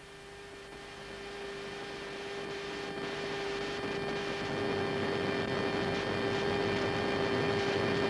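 Jet cockpit noise in low-level flight: a rushing hiss that grows steadily louder, with a steady mid-pitched electrical hum running under it.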